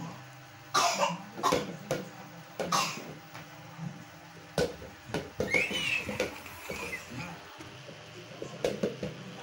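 Children playing in a small tiled room: short bursts of a child's voice, with a brief high-pitched squeal near the middle, among a few knocks and thumps.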